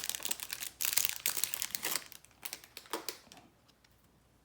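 Packaging of a football trading-card hanger box crinkling and tearing as it is opened by hand. The crinkling is dense for about two seconds, then thins to a few scattered rustles and clicks and stops.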